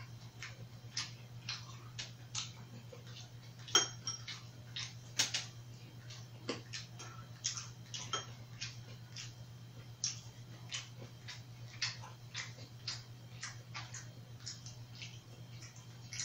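Eating at the table: scattered small clicks and smacks of chewing, with metal chopsticks clinking against ceramic bowls, the sharpest clink about four seconds in with a brief ring. A low steady hum runs underneath.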